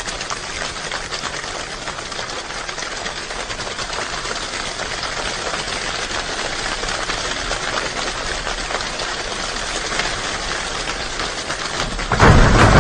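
Rain drumming on a roof: a dense, steady patter of drops that slowly grows louder. Near the end, a sudden much louder burst with a deep low rumble sets in.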